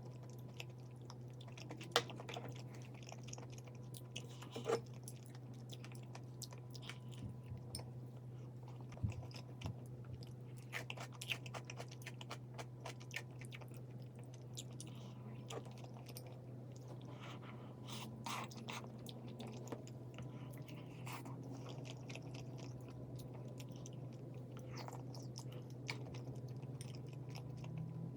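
A person chewing and biting food, with scattered short crunches and clicks, over a steady low hum.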